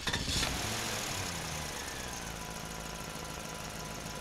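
Toy truck's built-in engine sound effect: a start-up burst that settles within a second or two into a steady idling rumble.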